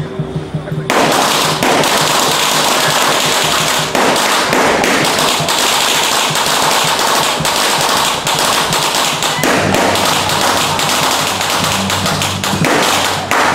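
A long string of firecrackers going off in a rapid, continuous crackle of sharp pops, starting about a second in.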